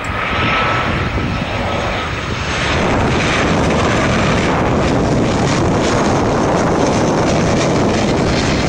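Jet engines of a low Boeing 737 airliner on its landing approach: a loud, steady jet noise that grows louder about three seconds in, with a faint high whine at first.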